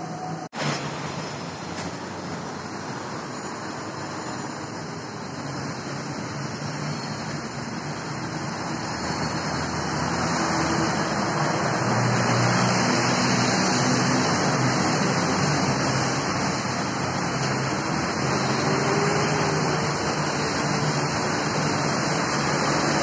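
Road traffic noise: a steady rush of passing cars with low engine hum, growing louder about ten seconds in.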